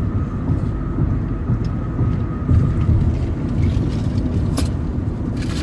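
Steady low rumble of a car, heard from inside the cabin, with a few faint clicks near the end.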